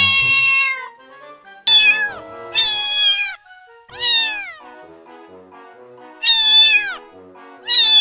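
Domestic cat meowing repeatedly, about six meows in all, each under a second long and dropping in pitch at its end, with gaps of half a second to a second and a half between them. Soft background music plays underneath.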